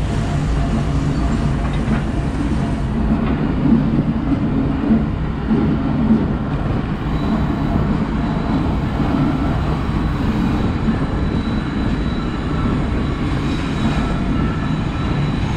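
Diesel freight locomotives running slowly past at close range: a steady low engine rumble, with a few louder clanks from the wheels and running gear in the first half and a faint high whine joining about halfway.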